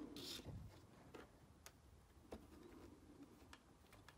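Faint, irregular small clicks of a tiny screw and washer being handled and refitted to hold the pickup shoe on an LGB model locomotive's motor block.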